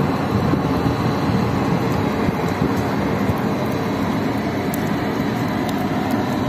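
Steady, even noise, mostly low-pitched, with a faint thin high tone over it.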